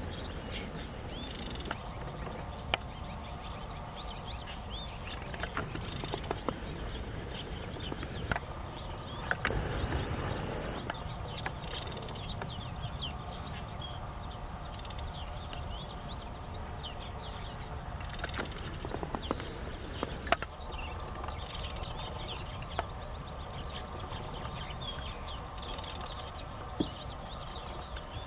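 Flock of streaked weavers chattering: many short, quick chirps, thickest about twelve seconds in and over the last third. Beneath them run a steady high whine and a low background rumble.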